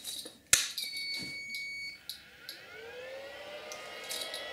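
3M belt-mounted powered-air respirator blower switched on: a click, a steady electronic beep lasting about a second, then its centrifugal fan spins up with a rising whine that levels off into a steady hum.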